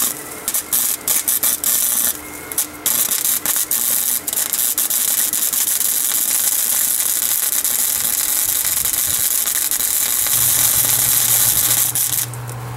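Wire-feed welder arc crackling as it welds over the cut end of a 1-inch steel wire rope to seal the strands against fraying. It comes in a few short stop-start bursts over the first three seconds, then one long steady run that cuts off shortly before the end. A low hum joins about ten seconds in.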